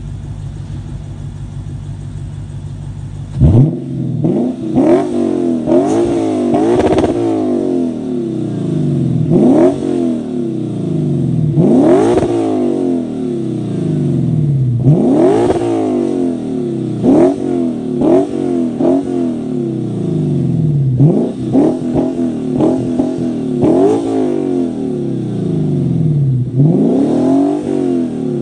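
Lexus GS F 5.0-litre V8 with an axle-back muffler delete and stainless straight piping, warmed up, idling for about three seconds, then revved hard about fifteen times, each rev rising quickly and falling back to idle.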